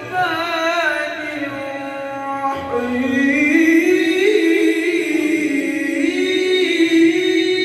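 A man reciting the Quran in melodic tajweed style, unaccompanied: an ornamented, quavering line at the start, then a new phrase about two and a half seconds in that begins low, climbs, and is held as one long note.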